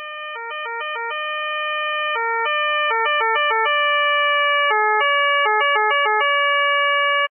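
Electronic police two-tone siren switching between a low and a higher pitch in an uneven rhythm: quick back-and-forth runs alternate with notes held about a second. It grows steadily louder and cuts off abruptly near the end.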